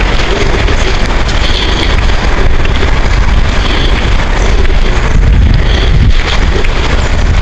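Wind buffeting the microphone with a loud, steady low rumble. Above it, a bird gives a short high call about every two seconds.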